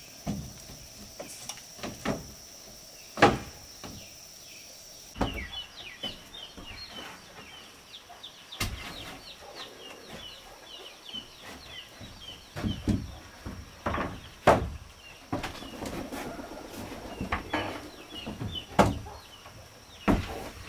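Wooden planks knocking and thudding irregularly as they are handled and stood against a wooden wall frame. After about five seconds, birds chirp steadily in the background.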